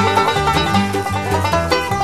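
Background bluegrass music led by a fast-picked banjo over a bass line.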